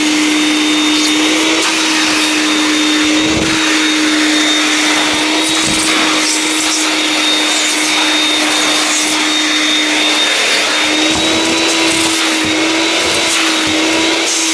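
Vax 221 wet/dry canister vacuum's two-stage 1000 W motor running at full suction in dry mode: a steady hum with a high whine over rushing air, and a few soft bumps from the upholstery tool. About ten seconds in, the motor's pitch lifts briefly as some suction is released.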